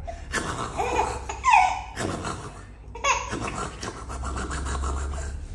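A young baby laughing: a couple of short, high squealing laughs, then a quick run of giggles about three seconds in.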